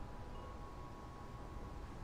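Wind chimes ringing softly: one chime is struck about a third of a second in and its tone rings on, over a low background rumble.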